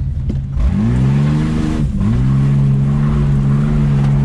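Vehicle engine revving up hard about half a second in, dipping briefly near two seconds, then held at high, steady revs while the old project truck tries to pull up a hill.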